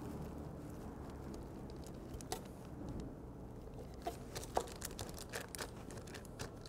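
Quiet knife work: a knife cutting through raw lamb between the rib bones on butcher paper, with a few faint clicks and paper crinkles scattered through, more of them in the second half.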